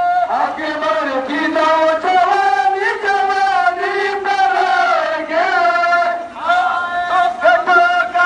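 A male voice chanting a noha, a Shia mourning lament, in long held notes that waver and slide in pitch.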